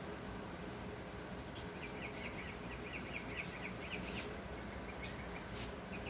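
A small bird chirping repeatedly in short high notes from about two seconds in, over a faint steady background hum.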